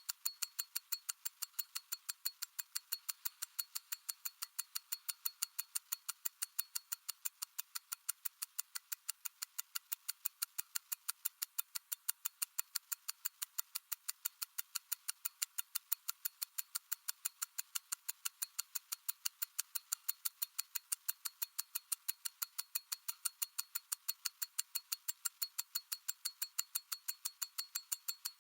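Mechanical watch ticking steadily and evenly, about five sharp ticks a second.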